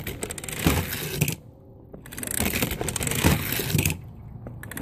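Die-cast Thomas toy engine rattling and clicking as it runs along a plastic spiral track, with knocks from the playset's plastic snake piece moving. The clatter comes in two spells, the second about two seconds long, with a short pause between.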